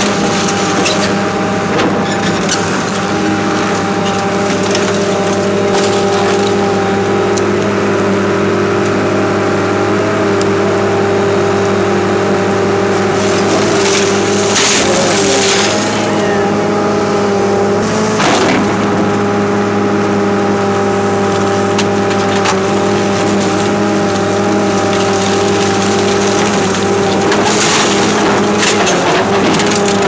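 Excavator's diesel engine running at a steady speed while its bucket crushes a car body, with noisy stretches of crunching metal around the middle.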